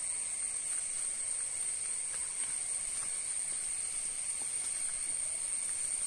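Steady chorus of forest insects: a continuous high-pitched buzz with a second, lower steady whine beneath it.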